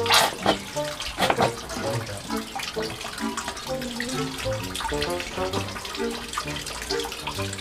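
Running water splashing while a puppy is bathed, with a few sharper splashes near the start. A simple stepping melody of background music plays underneath.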